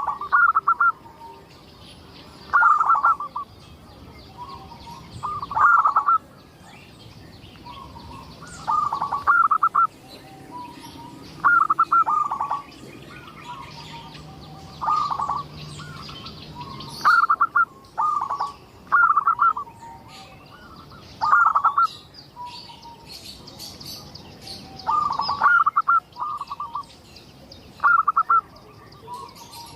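Zebra dove (perkutut) cooing over and over: a short, loud, rolling phrase about every two to three seconds. Faint high chirping sounds behind it.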